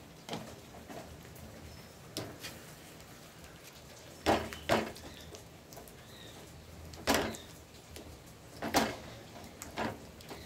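Wooden spatula knocking and scraping against a metal pan while stirring a thick urad flour and syrup dough, giving sharp knocks at irregular intervals, some in quick pairs.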